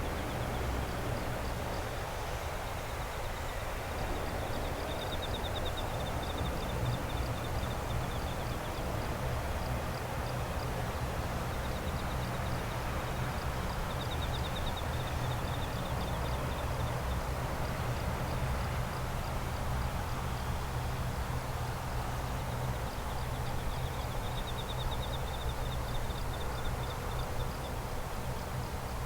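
Night insects, crickets or katydids, trilling in fast, evenly pulsed runs of several seconds, over a steady low rumble.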